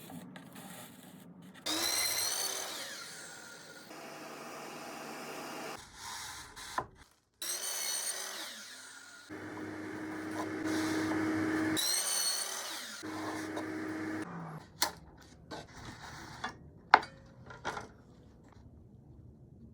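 Electric drill running in several short bursts, its motor whine rising as it spins up each time. Scattered sharp clicks and knocks follow near the end.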